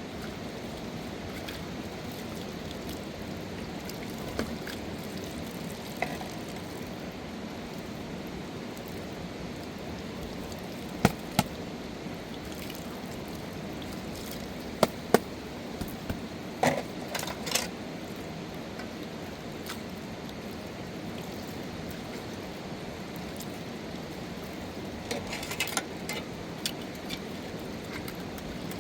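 Steady rushing of river water, with scattered sharp knocks and clicks: a pair about eleven seconds in, several more a few seconds later, and a run of lighter clicks near the end.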